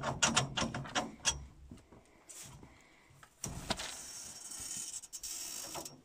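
Chicken feed being given out: a quick run of rattling clicks in the first second and a half, then a steady hiss of grain pouring from about three and a half seconds in.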